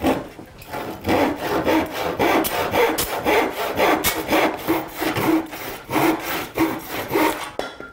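Fine-toothed handsaw crosscutting a 1x4 wooden board to length, in steady back-and-forth strokes about three a second that stop shortly before the end.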